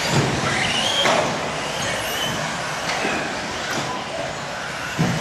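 1/10 scale electric RC off-road buggies racing: high motor whines rising and falling as the cars accelerate and brake, over tyre noise, with a few sharp knocks.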